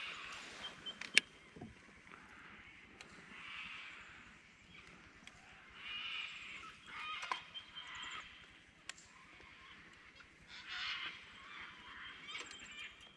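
Birds calling on and off, faint, with a sharp click about a second in.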